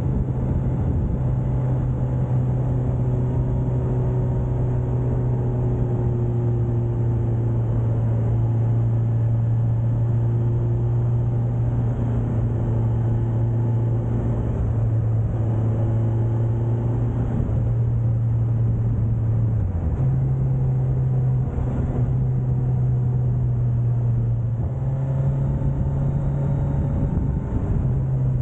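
Suzuki GSX1250FA motorcycle's inline-four engine running steadily while cruising, under wind and road noise. The engine note shifts in pitch about twenty seconds in and again a few seconds later.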